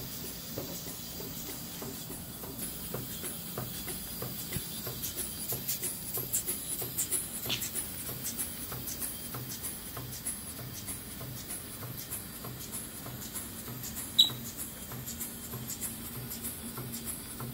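Schoenner 100/7 toy steam engine running on compressed air at about 3.5 psi: a steady rhythmic exhaust chuff with light mechanical clicking from the engine. One sharp click stands out about fourteen seconds in.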